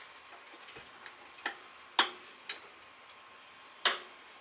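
Sharp metal-on-metal clicks and taps, about five of them at irregular spacing, each with a short ring, as the rusted foot brake pedal of a 1969 Honda CT70 is worked at to free it from its shaft.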